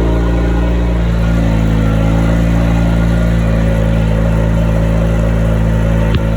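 Vehicle engine running steadily while under way, its pitch rising slightly in the first second. One sharp click comes shortly before the end.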